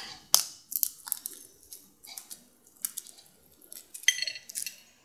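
Dried coffee cherry husks and beans handled between fingers on a ceramic plate: a scattered series of small dry crackles and clicks, with a cluster near the end.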